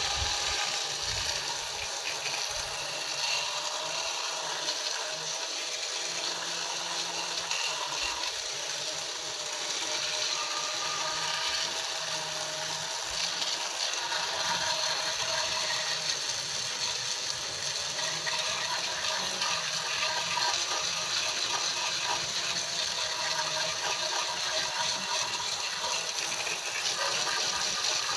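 A jet of water from a hand-pumped pressure sprayer hissing and splashing steadily onto a plastic upper intake manifold, over a continuous mechanical rattle.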